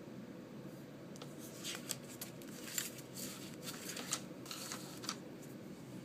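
Stiff paper index cards on a binder ring being handled and flipped over: a run of short papery rustles with a few sharp clicks between about one and five seconds in, over a steady low background hum.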